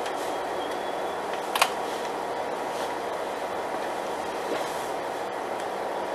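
Alstom Coradia Lint 41/H diesel multiple unit running with a steady, even drone. A single sharp click cuts through it about one and a half seconds in.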